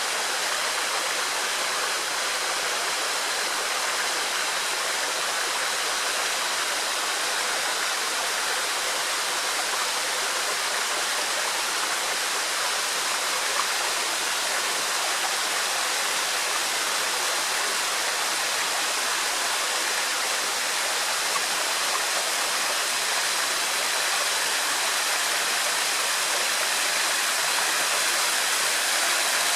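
Small waterfall falling steadily: an even, unbroken rush of water.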